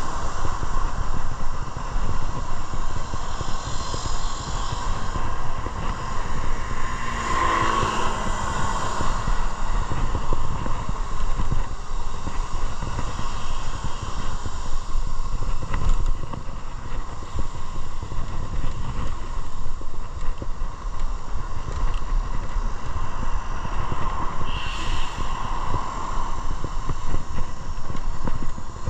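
A vehicle ride, most likely on a motorcycle: steady road and wind noise buffeting the microphone, with a constant drone throughout and a brief pitched sound about seven to eight seconds in.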